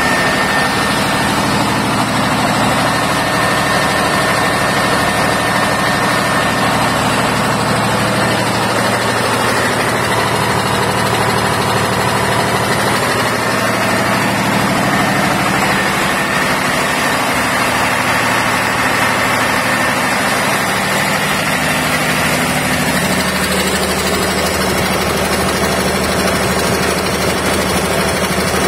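Lister inline multi-cylinder diesel generator set running steadily at a constant speed, with a small change in its low note about 23 seconds in.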